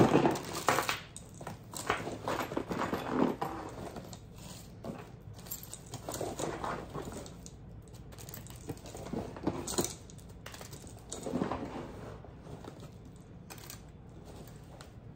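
Metal keychains and costume jewelry clinking and jangling together, with paper rustling, as they are pulled out of a paper piñata. The clatter is loudest at the start and grows sparser.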